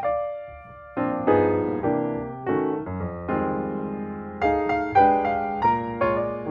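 Background music played on piano: struck notes and chords that ring and fade, with a brief lull about half a second in before the playing resumes.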